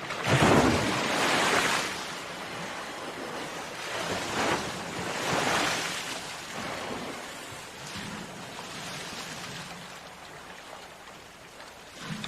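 Ocean surf: a wave breaks loudly right at the start and washes for about two seconds, then smaller waves surge about four and six seconds in over a steady hiss of sea water.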